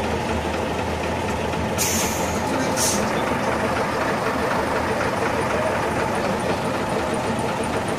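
Heavy Tatra trial truck's diesel engine running steadily at idle, with two short hisses of released compressed air, about two and three seconds in.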